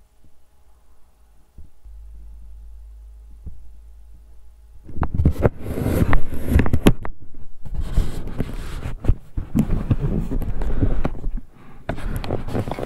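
Microphone handling noise: a low hum, then about four seconds in loud, irregular rumbling and crackling that lasts some six seconds, dips briefly and returns softer near the end.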